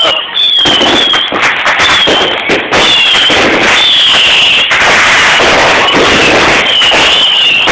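Consumer fireworks going off close by: dense, continuous crackling and popping, with short falling whistles repeating throughout.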